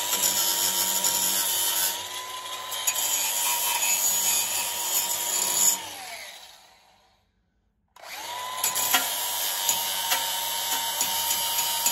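DeWalt angle grinder running with its disc grinding against steel. A little before halfway it is switched off and its whine falls away to a stop; about a second later it starts again, spins up to speed and goes back to grinding.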